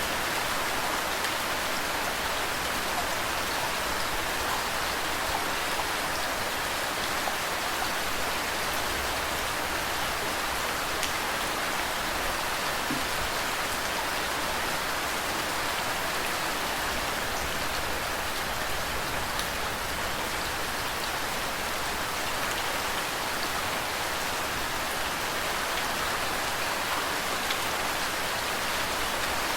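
Steady rain falling together with running water: an even hiss with scattered small drop ticks that does not change.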